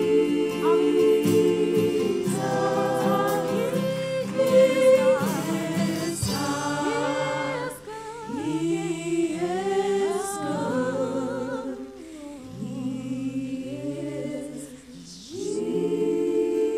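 Gospel worship music: a woman's voice singing with vibrato, sliding through runs over held backing chords. The chords swell back in near the end.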